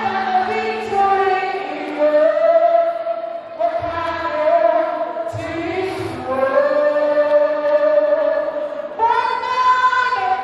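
A teenage girl singing a gospel song solo into a handheld microphone, holding long notes in phrases of a few seconds each.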